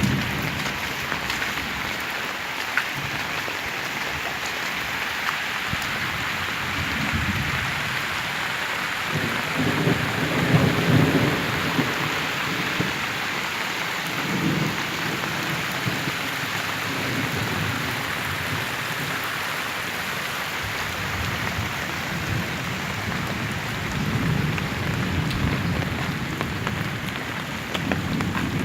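Heavy rain falling steadily, with low rumbles swelling several times. The strongest rumble comes about ten seconds in.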